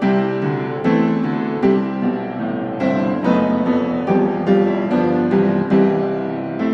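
Background piano music, single notes and chords struck one after another at an even, unhurried pace.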